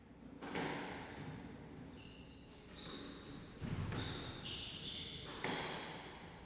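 Squash rally: sharp hits of the ball off the rackets and walls, echoing in the court, with short, high squeaks of the players' shoes on the wooden floor.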